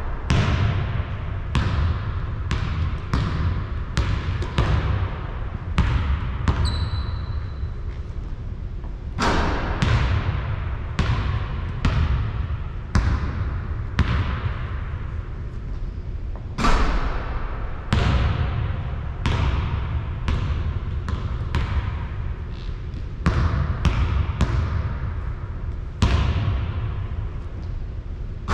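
A basketball bouncing over and over in an echoing gym, roughly one or two bounces a second, with a few harder impacts among them. A brief high squeak comes about seven seconds in.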